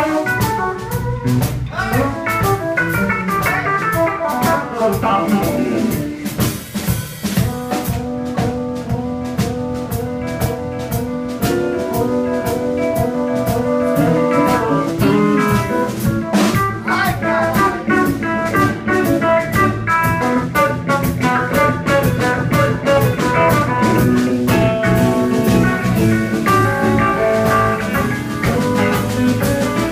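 Live blues band playing an instrumental passage: electric guitar playing quick runs of notes over bass guitar and drum kit.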